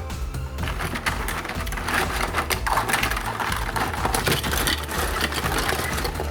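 A rapid, noisy rattling and scraping starts about half a second in and goes on over background music with a steady low bass.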